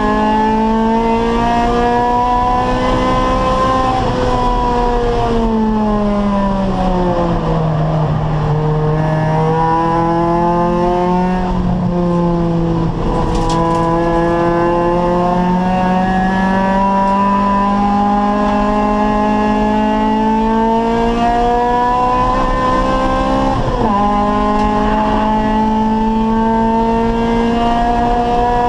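Acura Integra race car's four-cylinder engine pulling hard, its pitch climbing slowly, falling away over a few seconds about four seconds in, then climbing again, with a sharp dip at a gear change near the end.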